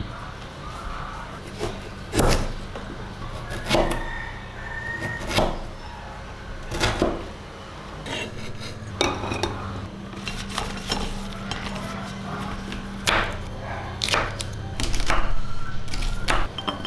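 Kitchen knife chopping carrot and green beans on a wooden cutting board, each stroke a sharp knock of the blade against the wood. The knocks come singly about every second and a half at first, then faster and closer together from about halfway through.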